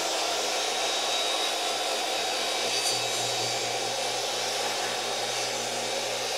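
Hercules 10-inch compact jobsite table saw running steadily with its blade spinning, ripping a pressure-treated 2x4 lengthwise.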